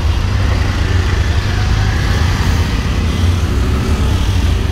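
Auto-rickshaw's small engine running steadily while riding in traffic, heard from inside the open cabin, a low rumble mixed with the noise of surrounding motorbikes and cars.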